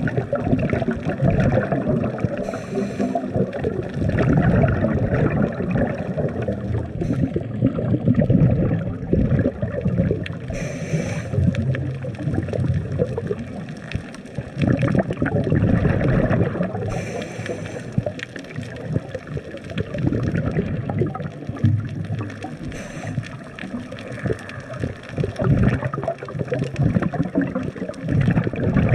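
Underwater sound of scuba diving: continuous bubbling and water rumble, with a short hiss about every six seconds in the rhythm of a diver breathing through a regulator.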